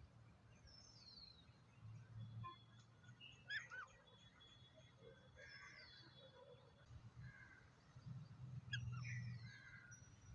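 Lovebirds chirping faintly: scattered short calls and quick falling whistles, with a louder cluster of chirps about three and a half seconds in and again near the end.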